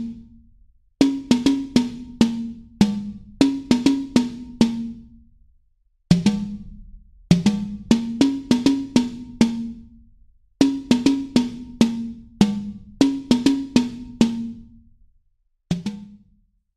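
Music of drum hits in quick rhythmic phrases, each hit ringing with a low pitch, the phrases separated by brief pauses and ending on a single hit near the end.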